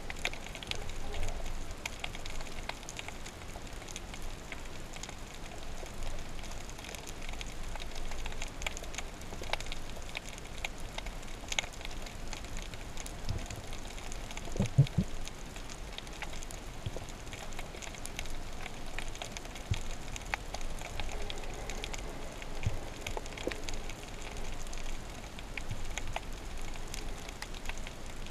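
Underwater ambience over a rocky seabed: a steady crackle of many small clicks, with a brief low thump about halfway through.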